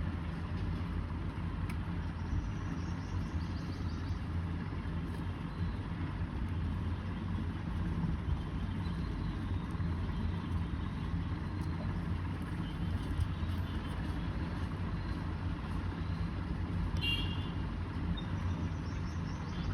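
Steady low rumble with a hum, unchanging throughout, with a brief high-pitched tone late on.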